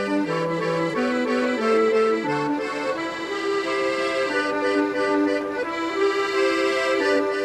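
Accordion music: a melody over a bass line that steps from note to note, changing after about two and a half seconds into held chords.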